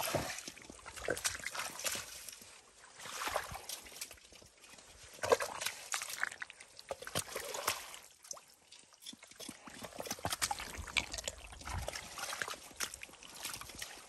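Footsteps wading through wet mud and shallow water, squelching and sloshing in irregular bursts.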